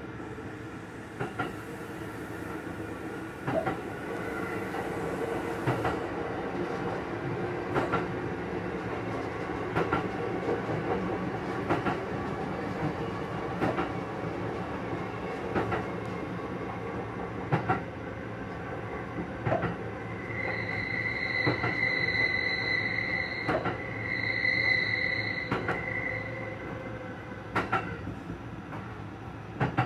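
Kintetsu Urban Liner limited express running, heard from inside the driver's cab: a steady rumble with sharp clicks of the wheels over rail joints every second or two. About two-thirds of the way through, a high wheel squeal sets in for about five seconds in two bouts as the train takes the tight curve of the Nakagawa chord line.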